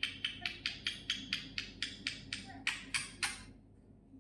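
A pet parrot giving a quick run of short, harsh calls, about six a second, that stops about three and a half seconds in.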